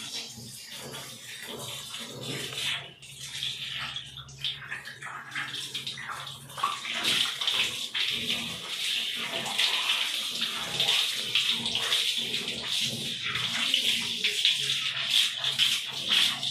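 Water running from a shower hose onto a dog's wet coat and splashing on a tiled floor, a steady hiss that grows louder about six and a half seconds in.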